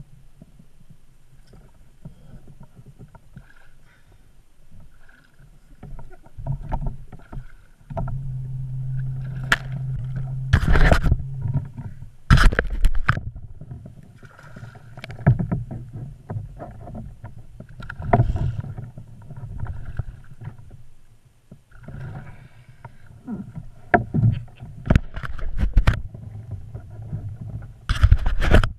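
Largemouth bass splashing and thrashing at the surface as it is fought beside a plastic kayak, with several sharp knocks and bumps against the hull and a low rumble between them.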